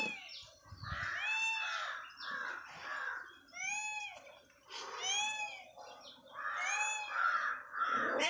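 An animal calling over and over, short clear calls that rise and fall in pitch, about one a second.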